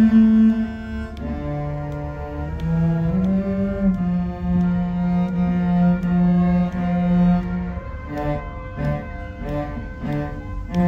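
Two cellos playing a bowed duet: long held notes, changing about eight seconds in to short, separate notes.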